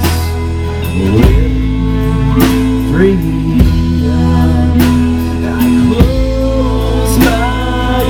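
Live band playing: fiddle, acoustic and electric guitars, and a drum kit keeping a steady beat, with a man singing.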